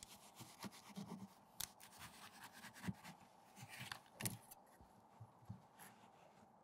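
Faint rustling and scraping of mineral wool insulation being pulled by hand out of a damaged patch of insulated facade, with a few light clicks and taps, the sharpest about four seconds in.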